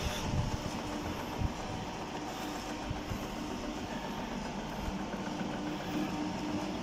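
Stainless-steel screw press juicer running, its electric drive humming steadily as the screw presses fruit pulp. A few dull knocks come in the first couple of seconds.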